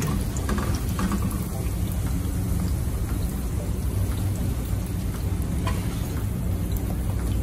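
Breaded chicken pieces deep-frying in hot oil, a steady crackling sizzle. A few light clicks come as a wire spider skimmer lifts pieces out of the pot.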